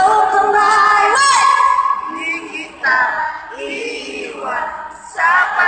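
A woman singing live into a microphone, holding long notes that slide up and down in pitch, with short breaths between phrases.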